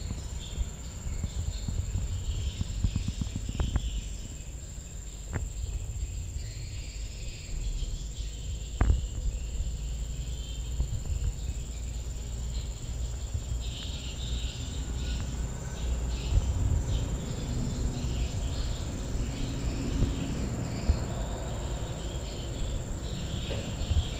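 Outdoor garden ambience: a steady high-pitched insect drone with scattered chirps over a low rumble, and a few sharp clicks in the first nine seconds.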